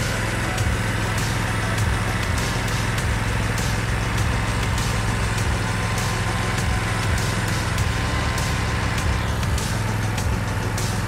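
Gas-powered string trimmer engines running steadily, with frequent small clicks over the hum.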